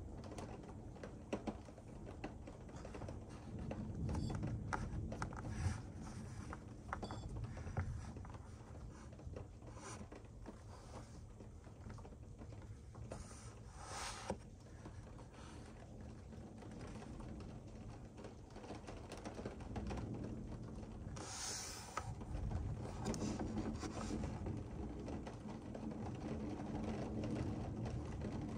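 Distant thunder rumbling low, swelling about four seconds in and again from about twenty seconds, under scattered light clicks and two short hisses.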